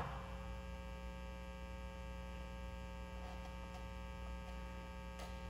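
Faint, steady electrical mains hum: a low drone with a series of steady tones above it, unchanging throughout.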